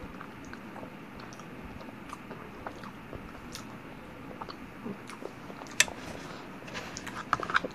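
A person chewing a mouthful of TV-dinner lasagna: soft wet mouth clicks and smacks, with one sharper click about six seconds in and a quick run of clicks near the end.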